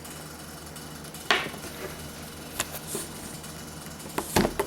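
A few light knocks and clicks of small plastic toy props being handled: one sharp knock about a second in, a smaller one later and a quick cluster near the end, over a steady low electrical hum.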